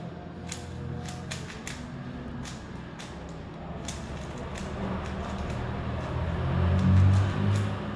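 Plastic 3x3 Rubik's cube being turned by hand: irregular sharp clicks and rattles as the layers snap round. A low steady hum runs underneath and swells about seven seconds in.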